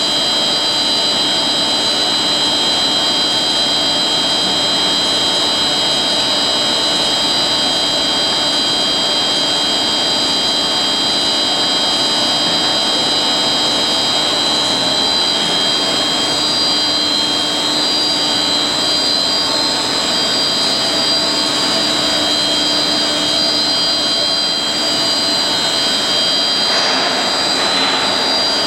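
HDPE blown film extrusion machine running: a steady loud hiss with several constant high-pitched whines, with a brief change in the noise near the end.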